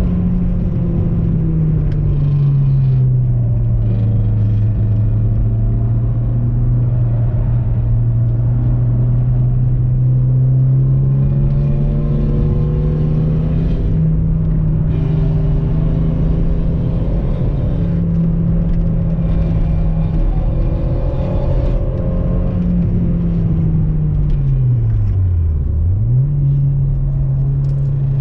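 Stock Seat Ibiza's engine heard from inside the cabin while lapping a race track. The engine note falls over the first few seconds, climbs slowly and steadily, then dips sharply and comes straight back up about 25 seconds in.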